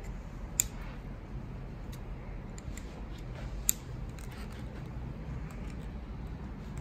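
Small metal clicks and taps of an open-end spanner working the hose nut where the hydraulic brake hose screws into the brake lever, with two sharper clicks, one about half a second in and one near the middle.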